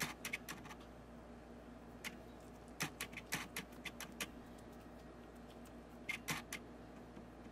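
Faint, scattered small clicks and crackles of fingers folding, pinching and pressing a sheet of samosa pastry dough closed around its filling, coming in short clusters several times.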